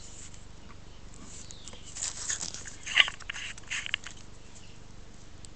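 Close handling noise from a metal-stemmed briar pipe being worked by hand over bubble-wrap packing: a short run of crinkly rustles and small clicks, loudest a sharp click about three seconds in.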